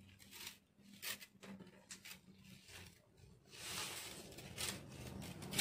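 Faint rustling and sliding of sequined brocade lace as it is handled and moved across a table, with a few soft ticks, the rustle growing louder about three and a half seconds in.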